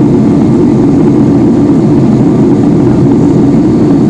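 Boeing 757-200's twin turbofan engines and rushing airflow heard from inside the passenger cabin during departure: a loud, steady, deep rumble.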